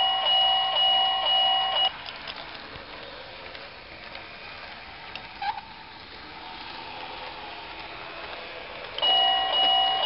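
Level-crossing warning bell ringing with a steady repeating ding under twice a second, signalling the automatic barrier is down for a passing train. It stops about two seconds in and starts again near the end, with a quieter stretch and a short click between.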